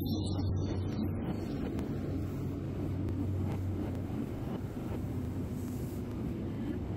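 GWR diesel passenger train moving past along the platform: a steady low engine hum with the rumble of the coaches rolling by.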